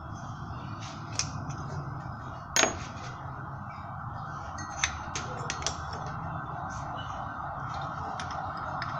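Metal hand tools and parts clinking during timing belt and idler bearing work. One sharp clank about two and a half seconds in is the loudest, followed by several lighter clicks around five seconds, over a steady low hum.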